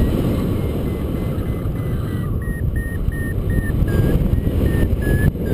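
Paragliding variometer beeping over wind rush on the microphone: a held tone at first, then short beeps about three a second from a little past two seconds in, slowing and dropping slightly in pitch near the end, the sign of the glider climbing in a thermal and the lift weakening.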